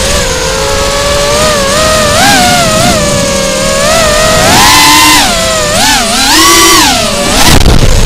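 Electric motors and propellers of a small FPV quadcopter whining loudly, their pitch rising and falling again and again with throttle changes. Near the end there is a brief rough rumble.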